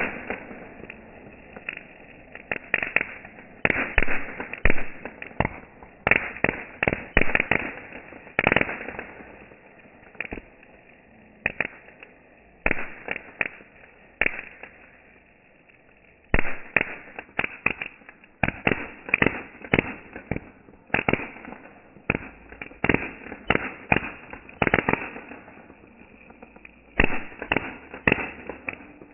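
A firework bursting with sharp bangs and crackling pops in irregular clusters, with a couple of short lulls about a third and halfway through.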